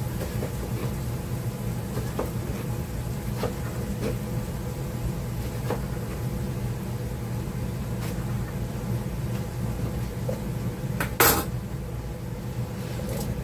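Kitchen knife chopping eggplant on a plastic cutting board: a handful of light, spaced taps, then one louder knock about eleven seconds in. A steady low hum runs underneath.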